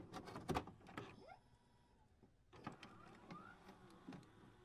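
Faint electronic glitch sound effects: scattered clicks and ticks, with two short rising whirs, one about a second in and one about three seconds in.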